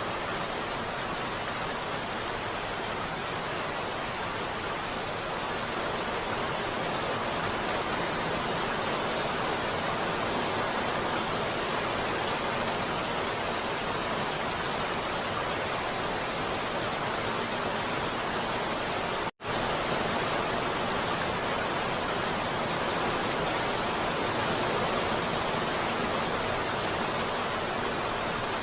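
Heavy rain falling in a steady, even hiss, with one split-second drop to silence about two-thirds of the way through.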